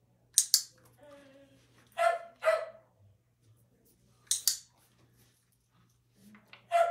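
A Shetland sheepdog barking in short single barks, two about two seconds in and one near the end. A pair of sharp clicks sounds twice, once just after the start and again about four seconds in.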